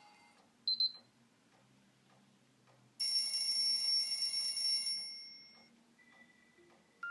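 Short electronic alert tones from a Nokia X3-02's loudspeaker. A brief high double beep comes just under a second in. At about 3 s a louder, steady chime-like tone starts, holds for about two seconds and then fades away, followed by a faint single tone.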